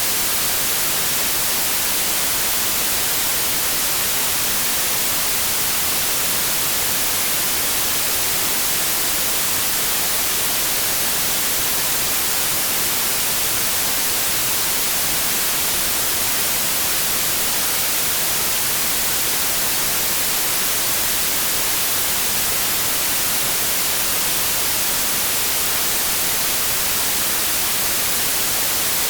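Steady, unbroken white noise: an even hiss, brightest in the treble, with no changes or events.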